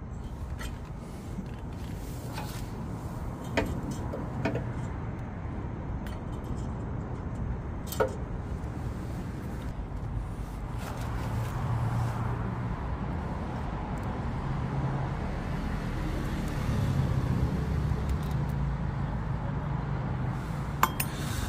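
A few sharp metal clicks and clinks of a small engine's carburetor and its parts being handled, over a steady low rumble that grows somewhat louder in the second half.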